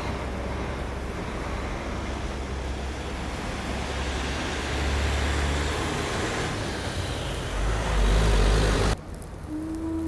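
City street traffic: a steady rush of passing vehicles with a low rumble, which swells louder about eight seconds in and then cuts off suddenly.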